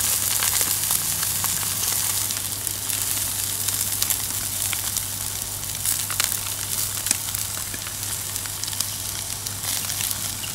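Bream and crucian carp sizzling on a heavy square-bar steel grill grate over charcoal, a steady hiss with scattered small crackles, as vegetable oil is brushed onto the fish.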